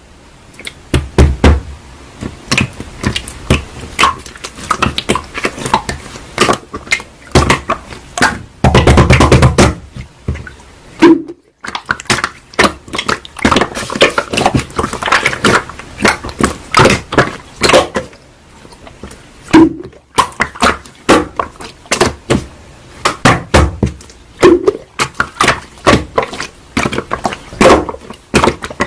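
Slime being squeezed and pressed by hand, making fast runs of sticky clicks and pops, with a few short pauses.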